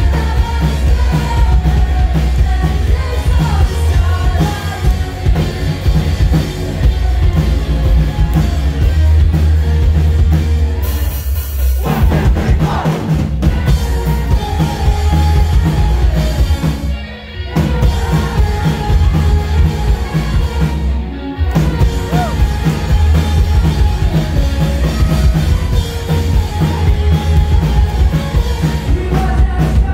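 A rock band playing live with singing over heavy bass and drums, loud and full, as heard from the audience. The band breaks off briefly twice, about 17 and 21 seconds in.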